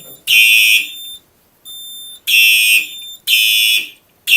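Simplex 4903-9236 fire alarm horn/strobe sounding in the temporal-three evacuation pattern: three half-second horn blasts a second apart, a pause of about a second and a half, then three more. A fainter steady beep sounds during the pause.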